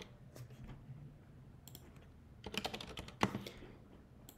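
Computer keyboard typing: a few scattered keystrokes, then a quick run of keystrokes about two and a half seconds in.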